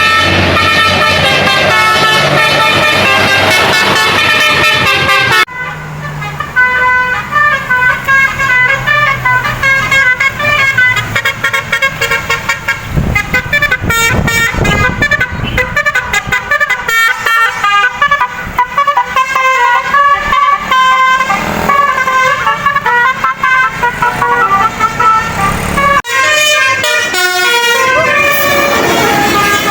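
Tour bus 'telolet' musical air horns (basuri horns driven by a DAV voice module) playing quick tunes of short stepped notes, in several clips joined with sudden cuts about five seconds in and again a few seconds before the end.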